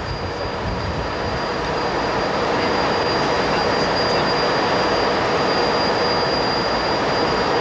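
Diesel-electric locomotives running at a depot: a steady engine rumble with a thin, steady high whine over it.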